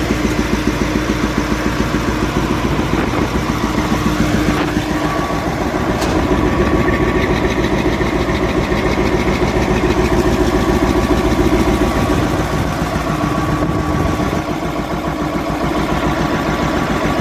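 Caterpillar 988F Series II wheel loader's diesel engine running steadily with an even firing pulse, getting a little louder about six seconds in. It is a test run after the broken injector hold-down bolt on cylinder 5 was fixed.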